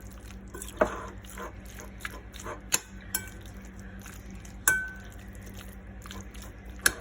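A utensil stirring chicken salad in a mixing bowl, knocking and clinking against the bowl about six times at uneven intervals, one clink ringing briefly, over a steady low hum.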